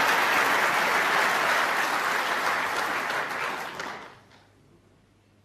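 Snooker audience applauding; the clapping fades away about four seconds in. The applause greets a break that has left the opponent needing snookers.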